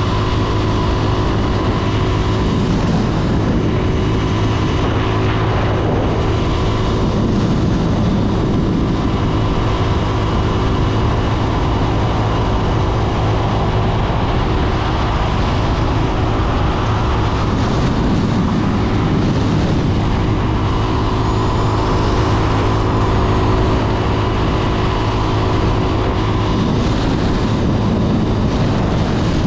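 Honda CB 250F Twister's single-cylinder four-stroke engine running at a steady cruising speed, a constant drone under a haze of road and wind noise.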